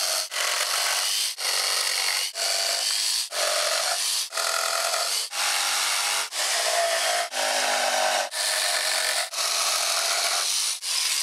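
Jigsaw cutting through wooden pallet slats, shaping their ends into picket points. Its whine shifts in pitch as the blade loads, in runs about a second long with brief breaks between.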